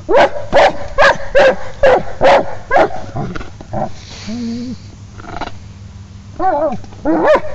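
Dog barking, a quick run of about seven barks in the first three seconds, then quieter, with a few higher yelping calls near the end. It is the agitated barking of a dog that is frustrated because it cannot pick up its ball.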